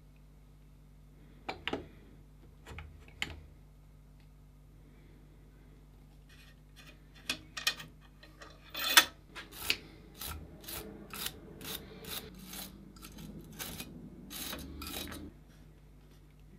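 A brass compression nut on a copper air line being turned by hand at an air compressor's head: short scrapes and clicks of metal on the threads. There are a few isolated ones in the first few seconds, then a denser run of about two or three a second from about seven seconds in, the loudest about nine seconds in.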